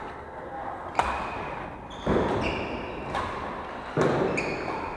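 Badminton rackets hitting a shuttlecock in a rally, three hits about a second apart with echo from the hall after each, and short high squeaks of sports shoes on the wooden court floor between them.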